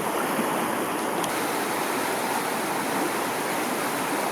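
Steady rush of creek water running over a shallow riffle.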